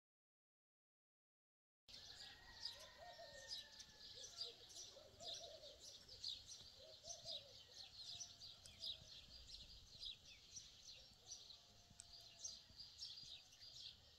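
Faint birdsong, starting about two seconds in: many small birds chirping in quick, short notes, with a few lower calls now and then.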